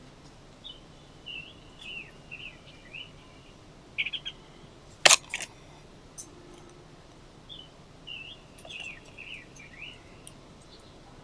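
A small songbird singing two quick twittering phrases of high chirping notes, a few seconds apart. A single sharp click about five seconds in is the loudest sound.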